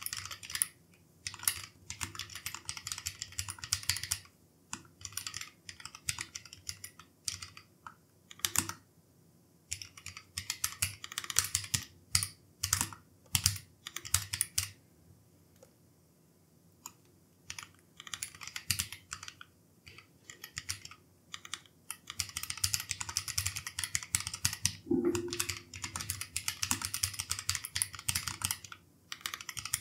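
Typing on a Keychron K3 Pro low-profile mechanical keyboard fitted with Gateron red linear switches: runs of quick keystroke clicks in bursts, with a few short pauses, the longest about halfway through.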